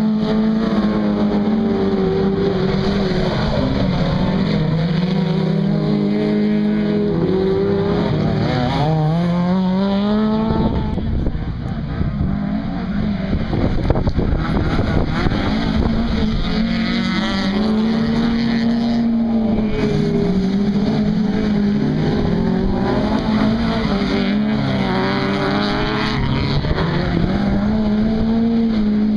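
Several dirt-track race cars racing through a corner, their engines revving hard, one after another. Engine notes climb and drop again and again throughout.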